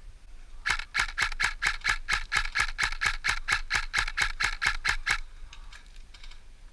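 Airsoft gun firing a rapid string of about twenty single shots, about four or five a second, that stops abruptly after roughly four and a half seconds.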